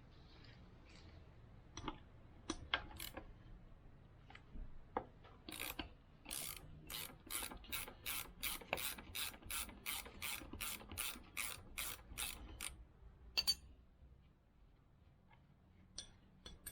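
Hand ratchet wrench being worked in quick, even strokes, about three a second for some seven seconds, after a few scattered tool clicks and knocks. A sharp double knock follows shortly after.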